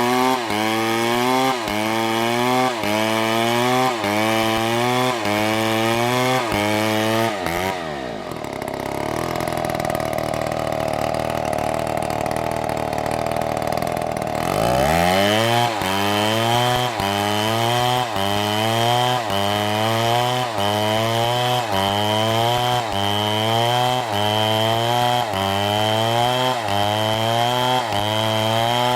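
Motorized wood-cutting saw running under a regular cyclic load, its pitch rising and dropping about one and a half times a second. About eight seconds in it slows to a lower steady hum, then speeds back up about six seconds later and resumes the same cycle.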